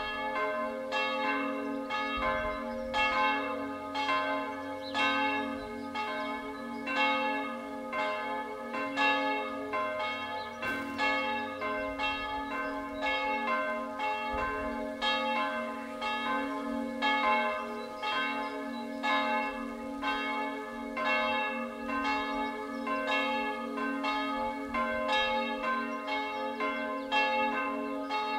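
Historic church bells swinging and ringing, struck about twice a second, each stroke ringing on under the next.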